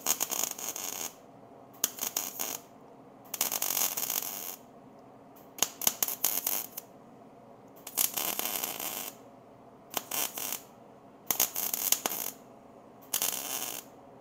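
MIG welder arc crackling on steel tubing in about eight short welds of roughly a second each, with brief pauses between them.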